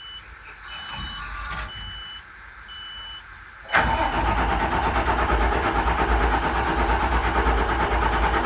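Short high electronic beeps, about one a second, then nearly four seconds in an engine starts abruptly and settles into a steady idle. The engine is being started during a fault-code check for hard starting and low power.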